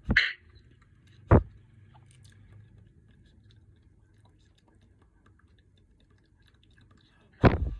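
Three loud thumps close to the microphone: one at the start, a sharp one about a second and a half in, and a slightly longer one near the end, with faint background between.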